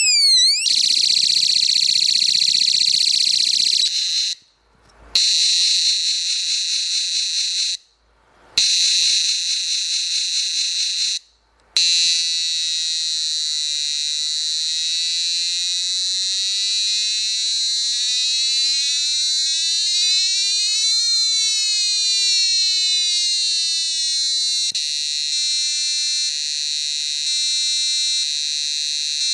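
Electronic 16-sound effects kit playing through its effects. A short siren sweep ends, then rapid high electronic beeping runs, cut by three brief pauses as the effects change. Next comes a long warbling tone gliding slowly up and down, and near the end a stepped electronic beeping pattern.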